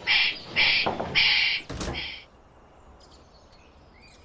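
Wombat calling: a run of four or five short, harsh, rasping hisses that stops a little over two seconds in.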